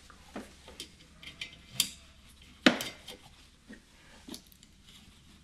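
Irregular metallic clicks and clinks of a wiper arm retaining nut and hand tools being fitted onto the wiper spindle, with one sharper knock about halfway through.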